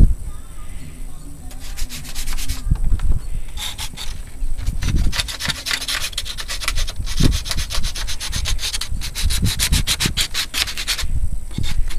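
Sandpaper rubbed back and forth by hand over a wooden pinewood derby car body. The scratchy strokes come in several runs with short pauses between, the longest run in the second half at about six strokes a second.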